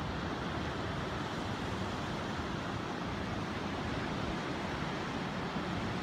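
Steady rush of ocean surf breaking over rocks, with wind buffeting the microphone in uneven low rumbles.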